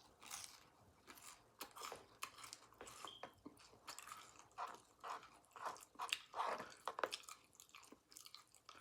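A person eating close to the microphone: wet, open-mouthed chewing with irregular lip smacks and small crunches.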